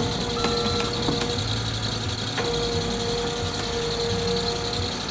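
Cat 308 mini excavator's diesel engine running steadily, with a short high beep about half a second in.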